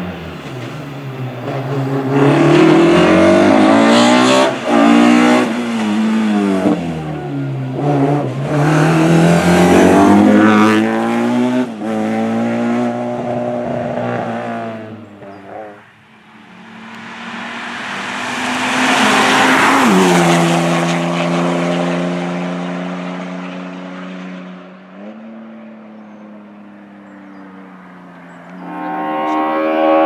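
Hill-climb race cars driven at full throttle. An engine revs up and drops back again and again through the gear changes over the first half. About two-thirds in, a car passes close, its engine note falling sharply as it goes by, and then pulls away.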